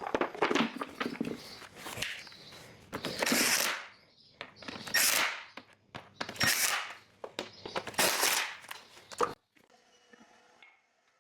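Workshop handling noises from dismantling a car's front end: a run of sharp clicks and knocks mixed with several short scraping rushes as parts are worked loose. It drops to a faint hum about nine seconds in.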